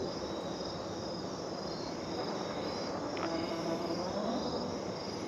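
Insects chirping steadily in a fast, even repeating pattern over a constant background.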